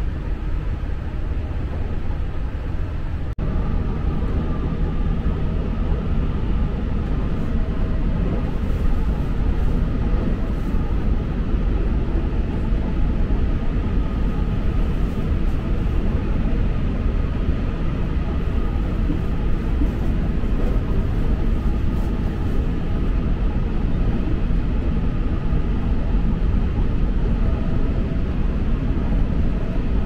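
Electric local train running: a steady rumble of wheels on track with a faint motor whine, broken briefly about three seconds in.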